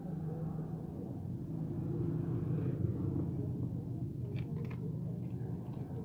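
Steady low rumble of a vehicle engine that swells and eases off, with a few light clicks about four and a half seconds in.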